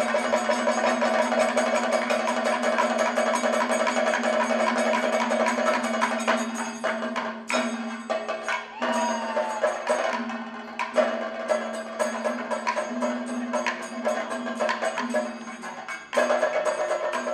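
Kathakali percussion playing: rapid drum strokes over a steady ringing tone. The playing thins out and drops in level for several seconds in the middle, then comes back in full about sixteen seconds in.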